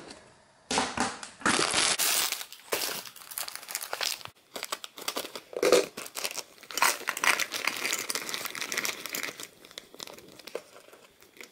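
A plastic bag crinkling and rustling as dried banana chips are tipped out of it into a tin, with many small clicks and rattles.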